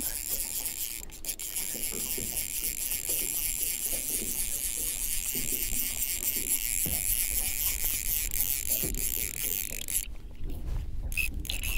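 Fly reel's click-and-pawl drag ratcheting in short, irregular runs while a hooked trout is played. A steady hiss and a low rumble lie under the clicks.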